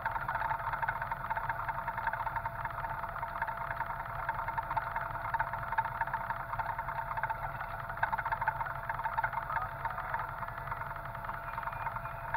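Off-road side-by-side's engine idling steadily with the vehicle standing still.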